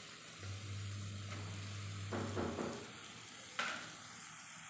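Kera (tuna) chunks and spiced masala sizzling gently in a clay pot, stirred with a silicone spatula that scrapes the pot's side a little after two seconds; one sharp knock about three and a half seconds in.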